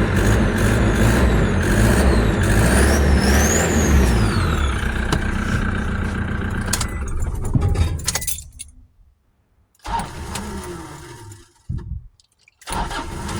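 Toyota Hilux N70 diesel engine running just after firing up, its fuel system freshly primed after a new fuel filter housing was fitted. About seven seconds in the sound dies away, followed by near quiet and a few short knocks.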